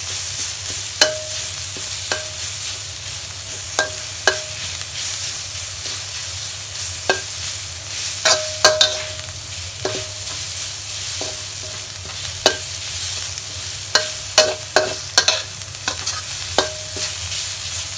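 Shiitake, ginger and a garlic–pepper–coriander-root paste sizzling in a little oil in a wok. A spatula knocks and scrapes on the pan irregularly, about once a second, and each knock rings briefly.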